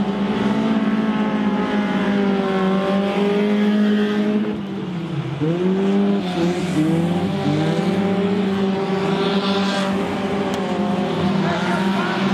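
Stock car engines running hard on a dirt oval, several engine notes overlapping. About five seconds in one engine's revs drop and climb back as a car slides through a corner and accelerates out.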